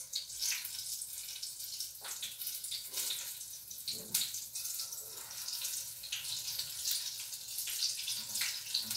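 Oil sizzling and crackling steadily in a frying pan as zucchini fritters fry, with a couple of light utensil clicks.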